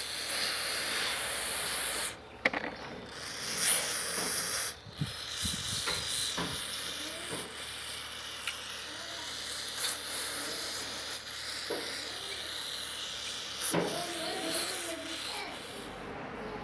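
Aerosol intake cleaner hissing as it is sprayed through the passages of a Stihl 028 chainsaw carburetor body via a thin extension straw, with a couple of brief breaks in the first five seconds.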